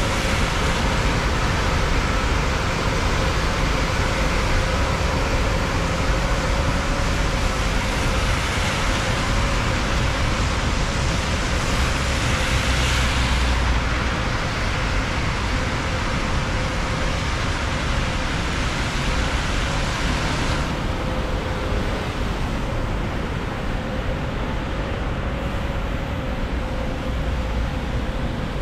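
Rainy city traffic: a steady hiss of rain and tyres on wet asphalt, with a faint steady hum under it. A passing vehicle swells louder about thirteen seconds in, and the hiss turns softer and duller about twenty-one seconds in.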